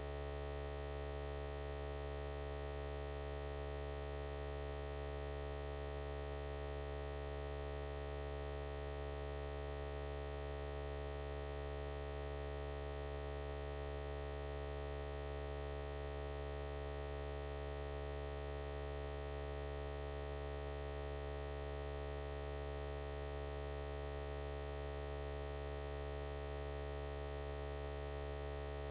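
A steady electrical hum made of several fixed tones, unchanging, with no other sound.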